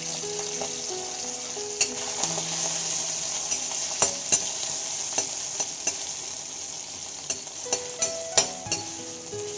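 Onion rings sizzling in hot oil in a kadhai while a metal spatula stirs them, scraping and clicking against the pan every so often.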